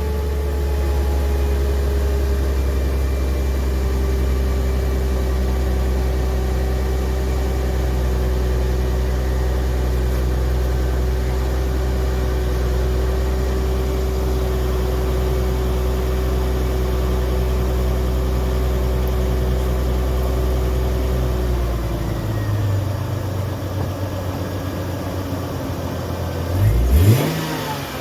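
Mercedes-Benz C320's 3.2-litre V6 running at a steady fast idle, dropping to a lower idle a little past 20 seconds in, then a quick rev of the throttle near the end.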